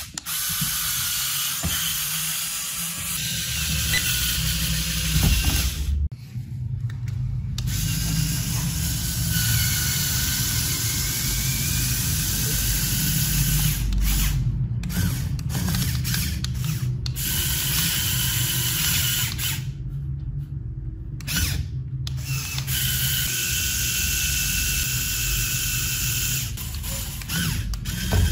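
Lego Technic car's small electric motors whirring under load, with the gears and wheels grinding as the car strains to climb over an obstacle. The whirring stops briefly a few times.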